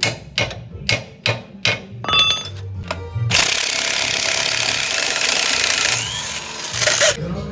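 Several sharp metal knocks, about three a second, then from about three seconds in a corded electric impact wrench hammering on the front hub's driveshaft axle nut for about four seconds, cutting off suddenly near the end.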